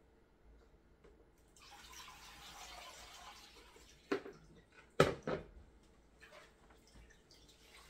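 Freshly squeezed coconut milk pouring and trickling through a metal sieve for a couple of seconds, then three sharp metal clanks from the sieve and bowl, the loudest about five seconds in.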